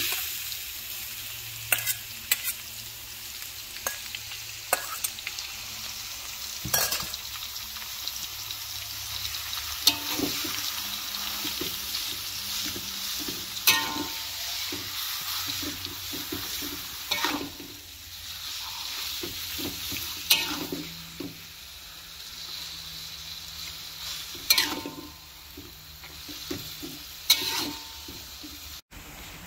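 Minced chicken sizzling in a hot metal wok as it is stir-fried with a metal spatula: a steady frying hiss, with sharp clinks and scrapes of the spatula against the wok every few seconds.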